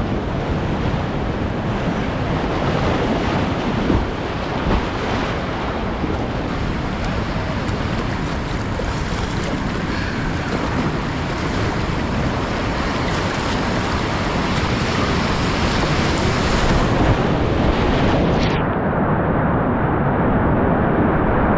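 Steady loud rush of whitewater rapids and falls, with wind buffeting the microphone. About 18 seconds in the high hiss drops away suddenly and the sound turns muffled.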